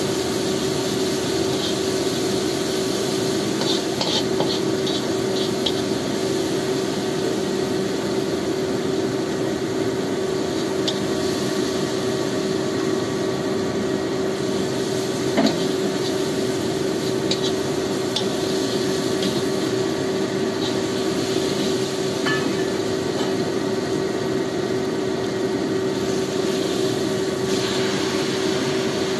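Spice paste sizzling in a non-stick wok while a metal spatula stirs and scrapes it, with small scattered clicks of the spatula against the pan and one louder knock about halfway. A steady hum runs underneath.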